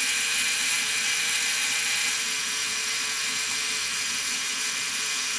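Minolta SRT 101's mechanical clockwork self-timer running down, a steady even buzz as the self-timer lever swings back toward its rest position.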